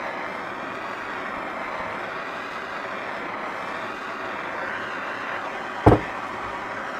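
Handheld propane torch (Bernzomatic head on a 1 lb propane bottle) burning steadily with an even rushing hiss as its flame is played over a pine board to char it. One sharp knock near the end.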